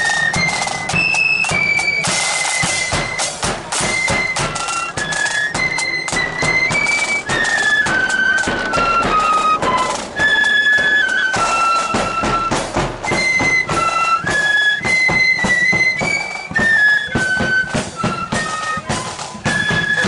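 Marching flute band playing a melody in unison on flutes, with drums beating a steady marching rhythm underneath.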